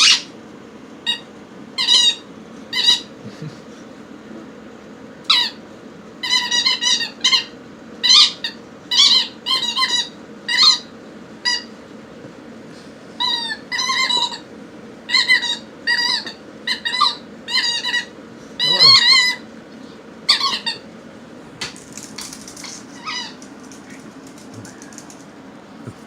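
Squeaky toy ball squeaking over and over as a pet chews it: short high squeaks, some single and some in quick runs, stopping about 21 seconds in.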